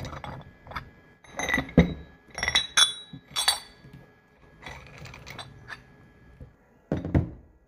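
Chrome-plated steel dumbbell plates and a spinlock collar clinking against each other and the threaded bar as the collar is spun on and the plates are handled: a series of sharp metallic clinks with a short ring, in clusters, the loudest about two to three seconds in and near the end.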